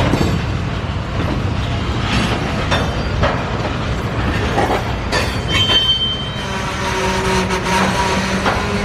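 Rail cars moving through a working rail yard: a steady rumble with repeated clanks and knocks of wheels and couplings. A brief high squeal comes about halfway through, and a steady lower squealing tone sets in during the second half.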